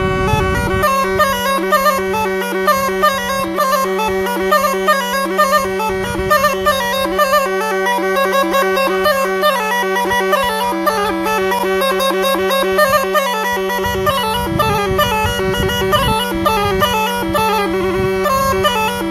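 Romanian cimpoi (bagpipe) playing a folk melody of quick notes on the chanter over one steady low drone.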